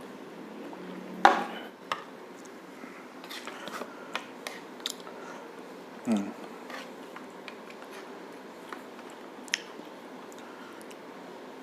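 Close-up mukbang eating of braised pork shank (pata tim): chewing and biting with scattered small clicks of cutlery on a plate. Two louder sounds with a falling pitch stand out, about a second in and about six seconds in.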